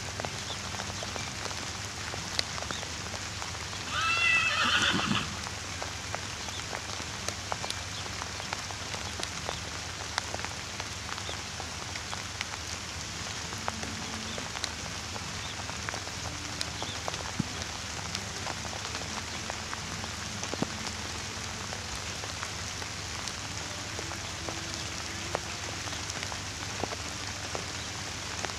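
A horse whinnies once about four seconds in, a wavering high call lasting about a second, the loudest sound here. Under it runs a steady hiss with scattered faint ticks.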